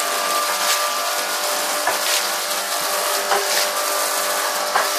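Rug-cleaning machine running with a steady motor hum while soapy water is swept and sloshed over a hand-woven rug, with brief swishes now and then.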